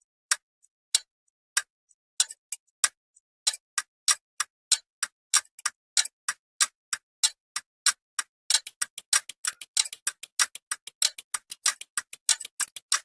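A run of sharp, dry clicks, at first about a second apart, quickening steadily until they come several times a second near the end.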